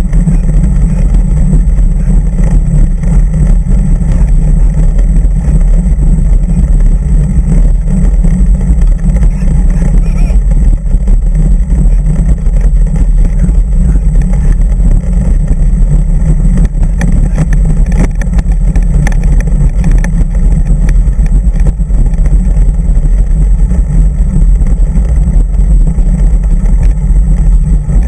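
Loud, steady low rumble of wind buffeting and road vibration picked up by a bicycle-mounted camera as the bike climbs a paved road.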